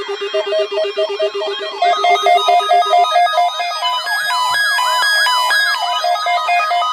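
Several NOAA weather alert radio receivers sounding their alarms at once, set off by the weekly test's warning alarm tone: fast pulsing beeps at two pitches layered with repeating warbling siren sweeps. More alarms join and it gets louder about two seconds in.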